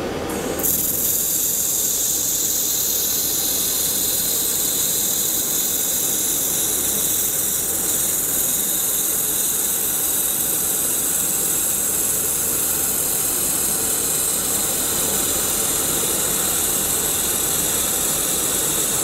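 xTool MetalFab handheld laser welder running one continuous pass along a seam in 1/8-inch aluminum plate: a steady hiss that starts about half a second in and holds even.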